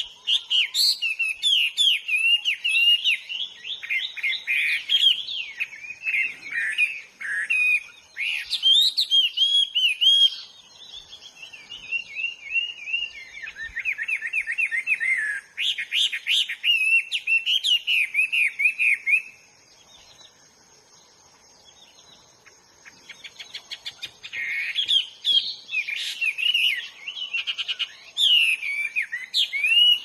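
A hwamei singing a long run of loud, varied whistled and warbled phrases. It stops for a few seconds about twenty seconds in, then starts again.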